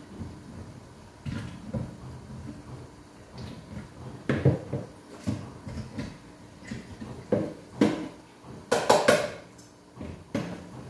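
Dishes and containers being handled at a kitchen sink: a series of knocks and clatters, the loudest a quick run of three about nine seconds in.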